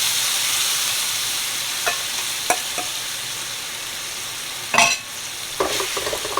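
Egg-coated tofu sizzling in a frying pan with sauce just poured over it, a steady hiss that eases off slowly. A few light clicks and a louder knock about five seconds in.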